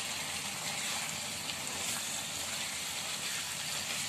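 Mutton pieces sizzling in oil and their own juices in a non-stick pan while being stirred with a spatula, a steady hiss.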